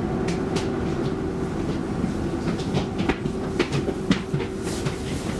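Interior of an X10 electric commuter train running slowly into a station: a steady low motor hum, with the wheels clicking and knocking irregularly over rail joints and points, and a brief hiss near the end.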